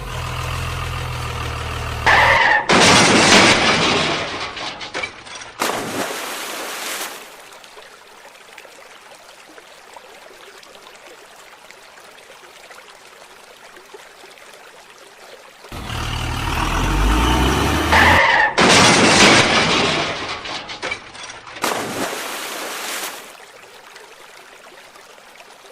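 Vehicle engine running steadily, then loud, noisy rushing bursts lasting a few seconds. The same engine-and-bursts sequence repeats about sixteen seconds in.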